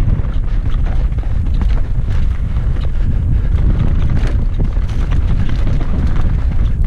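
Wind buffeting the microphone of a helmet-mounted camera during a fast mountain-bike descent, a loud steady low rumble, with frequent small knocks and rattles from the bike running over a rocky dirt trail.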